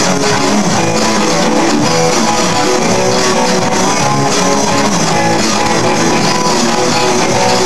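A live band playing loud amplified music: electric guitar and bass guitar, dense and steady without a break.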